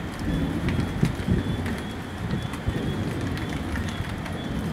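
Rain falling in a nighttime thunderstorm, scattered drops ticking close by over a steady low rumble.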